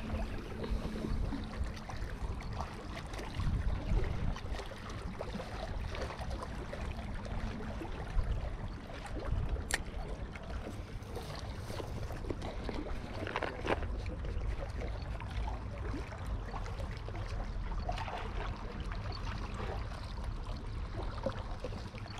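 Small waves lapping and trickling at the water's edge, with a low wind rumble on the microphone and a single sharp click about ten seconds in.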